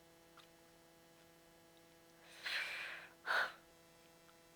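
A person breathing: a long breath a little over two seconds in, then a short, louder huff of breath right after it.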